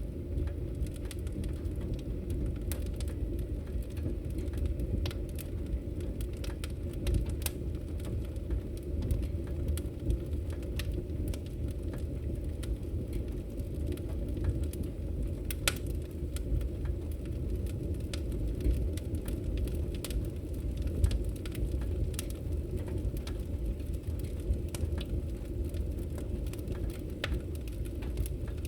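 Wood logs burning in a fireplace: a steady low rumble of the fire with scattered crackles and pops throughout, one sharper pop about halfway through.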